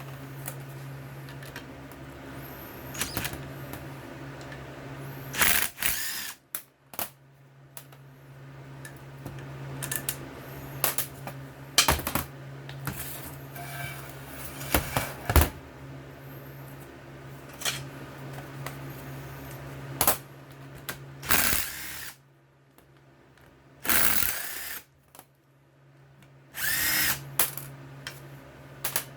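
Power driver with a 1/2 inch socket spinning out the bolts of a snowblower auger gearbox housing, in several short runs with pauses between them, over a steady low hum.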